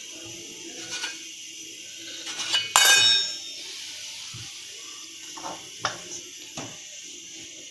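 A round dough cutter being worked on the counter as rolled dough is cut: a few light knocks and one loud metallic clink with a brief ring about three seconds in.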